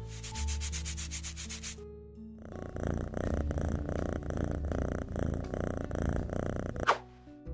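Rapid, evenly repeated scratching strokes of hair being scratched for about two seconds, then a cat purring in a steady pulsing purr for about four and a half seconds. A brief sharp sound comes near the end.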